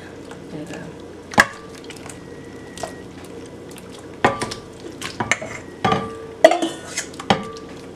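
Metal ladle clinking and scraping against a stainless steel bowl while scooping cooked shrimp out of it: one sharp clink about one and a half seconds in, then a run of clinks and knocks in the second half.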